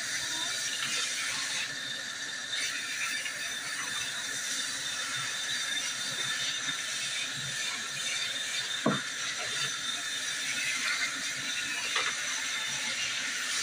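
Salon shampoo-bowl sprayer running steadily, water hissing onto hair and into the basin. A sharp click comes about nine seconds in and a smaller one near the end.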